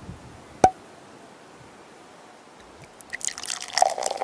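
A single sharp click less than a second in, then, from about three seconds, gulping and glugging as a man drinks straight from an upturned glass wine bottle.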